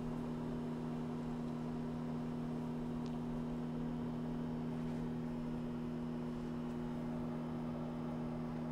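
Over-the-range microwave oven running with a steady hum, heating a cup of butter to melt it.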